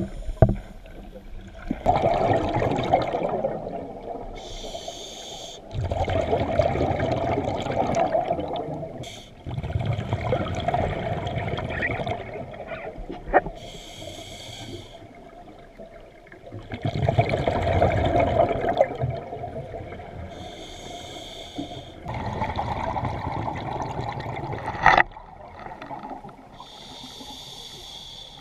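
Scuba diver breathing through a regulator underwater, in slow cycles: each inhale a short hissing draw with a thin whistle, each exhale a few seconds of bubbles gurgling out of the exhaust valve. About five breaths, with a single sharp click late on.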